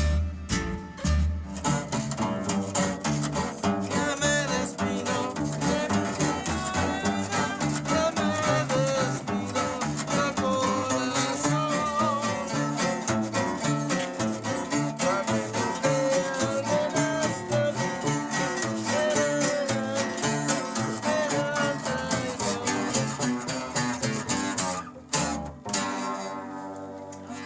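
A string ensemble playing Mixtec music: plucked guitar strings under a wavering melodic line. About 25 seconds in the music breaks off, leaving a ringing chord that fades away.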